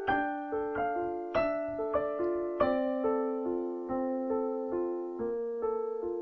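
Slow solo piano music: single notes and simple chords struck about twice a second, each ringing and fading. Near the end a held note wavers quickly in volume.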